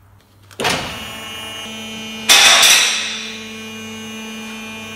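Two-post vehicle lift's hydraulic pump motor running with a steady hum, starting abruptly under a second in. About two seconds in, a louder surge of hiss comes in and fades over about a second.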